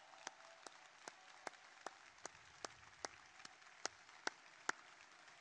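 Crowd applauding, a soft even patter, with one set of loud, sharp claps near the microphone standing out at a steady beat of about two and a half a second that stops near the end.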